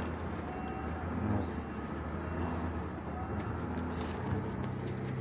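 A steady low mechanical hum, like an engine idling, with a faint knock or two.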